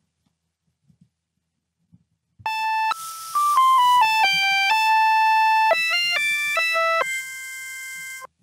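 A DDSP neural synthesizer plugin plays a short melody with its flute model: about fifteen synthesized, flute-like notes over a breathy hiss. The notes come in quick runs around one longer held note. The melody starts a couple of seconds in, and its last note is held more quietly.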